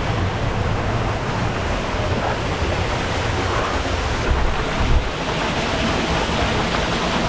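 Steady rush of water, a continuous loud wash with a low rumble underneath.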